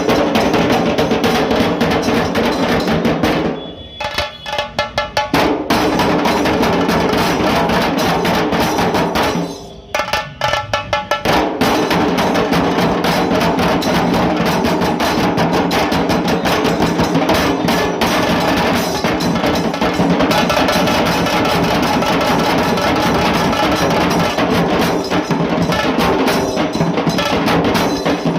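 Dhol tasha drum ensemble playing a loud, fast, dense rhythm. Twice the playing drops briefly to a few separate strokes, once about four seconds in and again about ten seconds in, before the full group comes back in.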